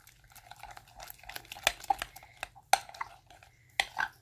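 Floam slime being stirred in a bowl after more activator goes in: irregular clicks and short scrapes of the stirring utensil against the bowl, several a second.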